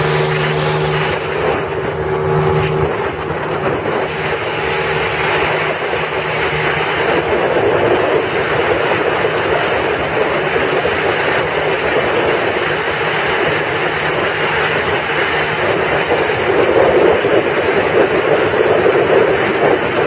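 Steady drone of a light aircraft's engine in flight, mixed with heavy wind rush on the microphone. A clear engine hum stands out in the first few seconds, after which the wind noise covers most of it.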